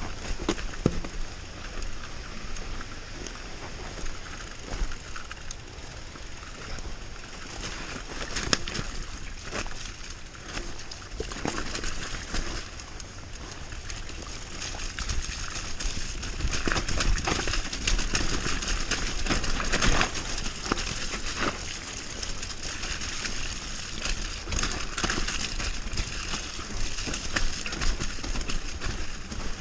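Mountain bike descending a dirt forest trail: tyres rolling and crunching over soil and roots under a steady rushing noise, with frequent irregular knocks and rattles from the bike over bumps, a little busier and louder in the second half.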